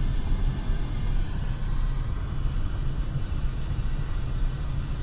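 Steady low rumble of a car coasting in neutral along a dirt track, heard from inside the cabin: tyre and road rumble with wind noise, even throughout.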